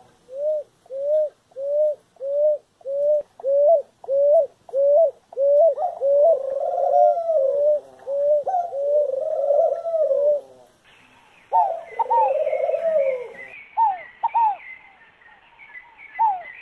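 Ruddy ground doves cooing: a steady series of short, rising-and-falling coos at about two a second, with longer warbling coos from another dove overlapping. About eleven seconds in the recording changes to spaced coos mixed with higher chirping calls.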